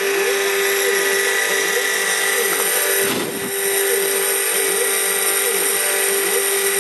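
CNC mill spindle running with a steady high whine as a small end mill cuts copper from a PCB blank, with the axis motors' whine rising and falling in pitch as the table moves. The steady tone dips briefly about three seconds in, under a short low rumble.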